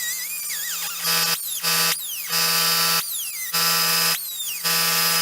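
A power tool grinding and cutting a small steel bracket in about five repeated passes over a steady motor hum. Each pass of loud grinding is followed by a short gap where the tool's pitch falls.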